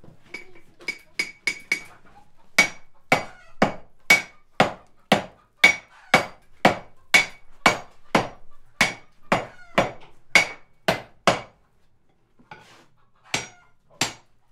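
Sledgehammers striking hot iron on an anvil, two strikers taking turns at about two blows a second. A few lighter ringing taps come first, and the blows pause for a second or two near the end before starting again.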